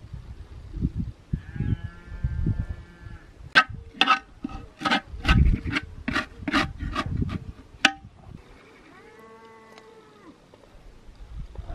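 Livestock bleating: a drawn-out bleat, then a quick run of about ten short pulsing calls, and another drawn-out bleat near the end, with low thumps underneath in the first half.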